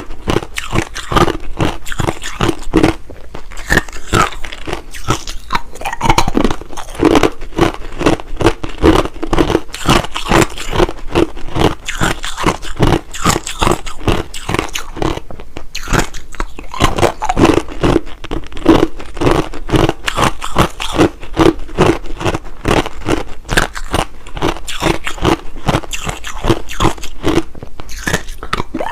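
Hard, clear crushed ice being bitten and chewed: a dense, unbroken run of sharp crunches, several a second.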